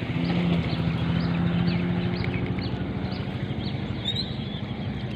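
A small engine running steadily, fading after about three seconds, with a short high chirping call repeating about twice a second.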